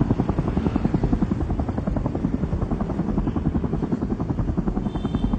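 Helicopter running, its rotor blades chopping in a rapid, steady beat over a low engine rumble.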